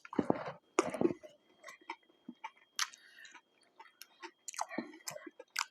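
Close-miked chewing of McDonald's food: irregular wet mouth clicks and smacks, with a couple of louder bites or mouth noises in the first second.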